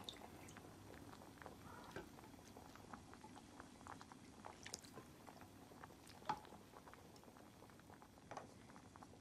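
Faint eating sounds: chopsticks and a spoon clicking against a bowl and a hot pot, with chewing. Scattered small clicks, the sharpest about six seconds in.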